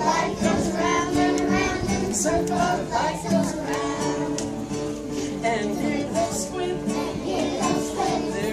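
A class of young children singing a song together to acoustic guitar accompaniment.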